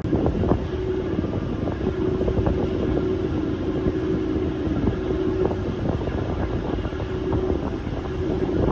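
Sightseeing boat's engine droning steadily, with wind buffeting the microphone.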